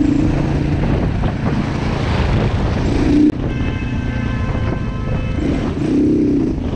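Motorcycle riding on the road, heard from the rider's camera: engine running under steady wind rush on the microphone. The sound breaks off suddenly a little over three seconds in, and a steady high tone follows for about two seconds.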